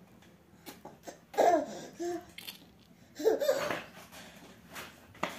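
Baby laughing in two short bursts, about a second and a half in and again around three seconds in.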